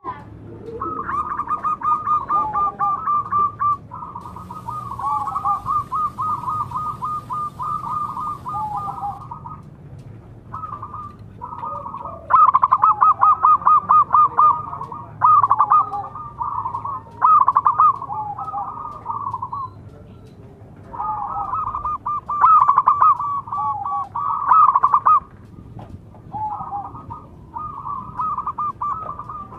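Zebra doves (perkutut) cooing, several birds calling and answering one another. Each phrase is a quick run of rapid notes lasting a few seconds, with short pauses between phrases.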